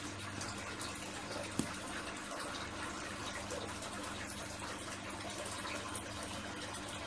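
Steady running water with a low hum underneath, and a single click about one and a half seconds in.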